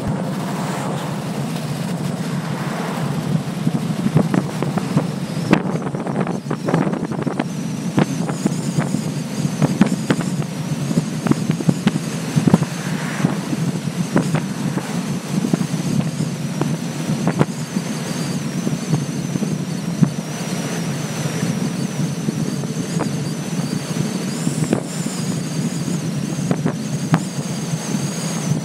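Touring motorcycle's engine running steadily at cruising speed, heard from the rider's seat with wind buffeting the microphone. A faint high-pitched whine joins about eight seconds in.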